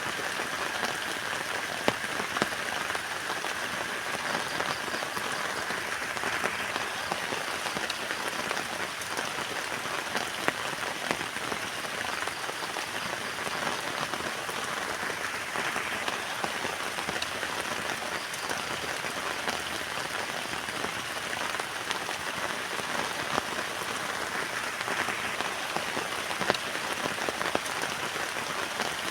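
Heavy rain falling on a tent: a steady hiss of many drops, with a few louder single drop hits here and there.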